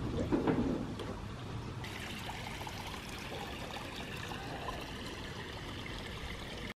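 Water churning and trickling in a hot tub, a steady splashing hiss, with a low rumble in the first second.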